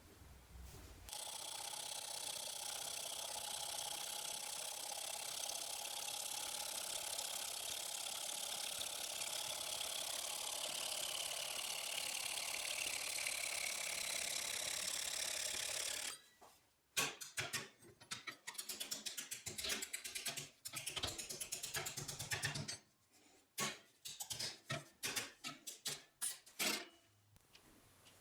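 A small motor-driven tool runs steadily for about fifteen seconds with a faint whine that slowly drops in pitch. It then gives way to a long series of short, irregular bursts and clicks.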